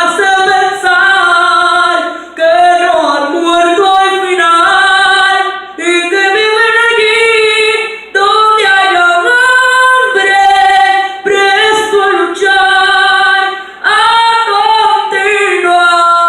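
A girl singing a song in Spanish unaccompanied, in long held phrases with short breaths between them.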